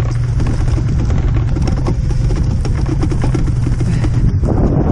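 Kugoo M4 electric scooter rattling and knocking as it jolts over rough, dry field ground, with steady wind rumble on the microphone.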